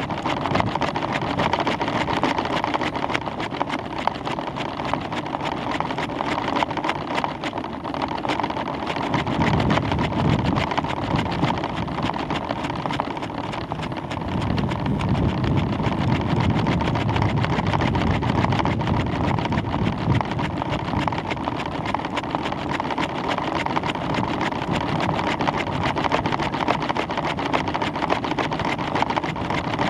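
Wind rushing over the microphone of a camera riding on a rising weather-balloon payload: a steady noisy rush, with low rumbling gusts that swell about nine seconds in and again from about fourteen seconds in.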